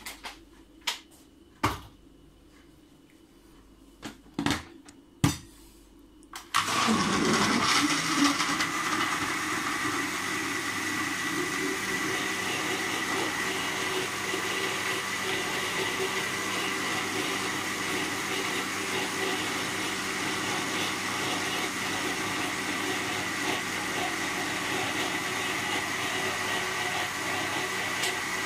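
A few sharp clicks and knocks, then, about six and a half seconds in, a countertop blender's motor starts and runs steadily with a high whine, blending strawberries and milk into a smoothie.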